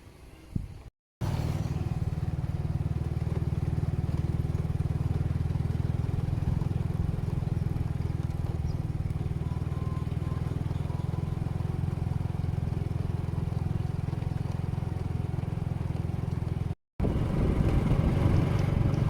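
An engine running steadily at an even pitch, broken by two short cuts in the recording, about a second in and near the end; after the second cut it is louder.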